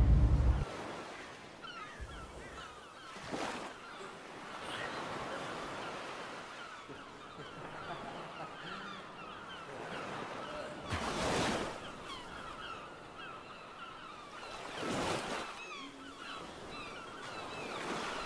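Seaside ambience: waves washing in on rocks three times, a few seconds apart, over a steady stream of many short bird calls.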